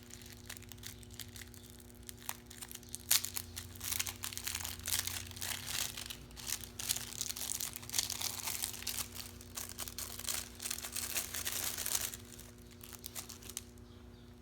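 Plastic packaging crinkling and crackling as it is handled and opened, densest from about three seconds in until about twelve seconds.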